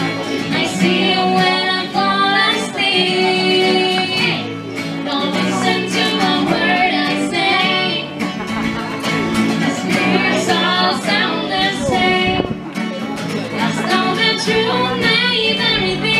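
Live acoustic guitar with a woman singing a song.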